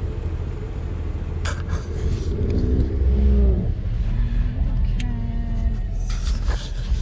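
Off-road vehicle's engine running low and steady, heard from inside the cab as it crawls over a rutted dirt trail. Sharp knocks and rattles from the body and suspension come about a second and a half in, at about five seconds and near the end.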